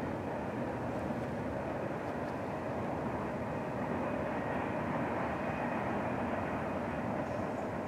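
Distant freight train rolling past: a steady, even rumble of cars on the rails.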